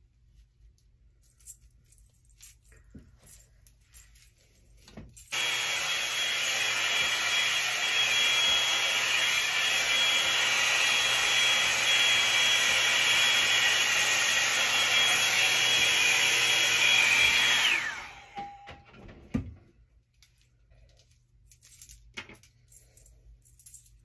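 Revlon One-Step hot air brush switched on about five seconds in, blowing steadily with a high whine, for about twelve seconds; when it is switched off the whine falls away as the motor spins down. Faint clicks and rustles before and after it.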